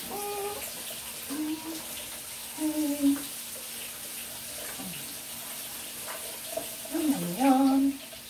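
A woman humming a few short wordless notes over a steady hiss, with the longest bit of humming near the end.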